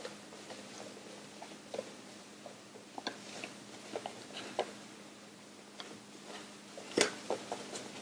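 Folded paper units of a modular origami ball rustling and crinkling as they are pressed and slotted together by hand: irregular small crackles and taps, with a sharper crackle about seven seconds in.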